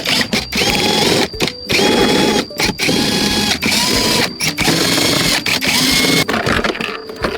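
A small electric motor tool run in a string of short bursts, each about a second long with brief gaps between them; at the start of each burst the motor whine sweeps up and levels off as it spins up.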